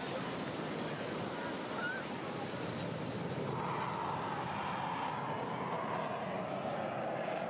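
Steady surf and wind noise at the beach. About halfway through, a distant aircraft engine drone comes in, its pitch slowly falling.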